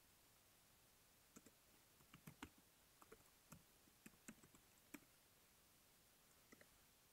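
Faint computer keyboard typing: a quick run of key clicks over a few seconds, then two more clicks near the end.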